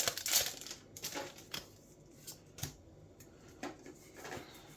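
Trading cards being handled and sorted: a foil booster-pack wrapper crinkles briefly at the start, then about half a dozen soft, separate taps and slides as cards are laid down on the piles.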